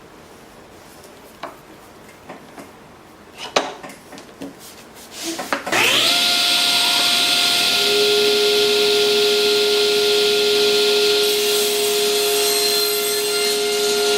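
A few light knocks and clicks, then a table saw's motor starts about six seconds in and runs steadily with a high whine and hiss.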